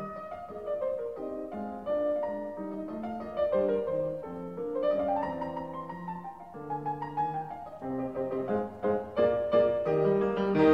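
Background piano music: a melody of separate notes over lower bass notes.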